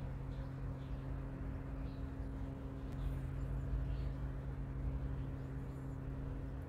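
Steady low background hum with a constant drone and rumble underneath, and a few faint high chirps around three seconds in and again near six seconds.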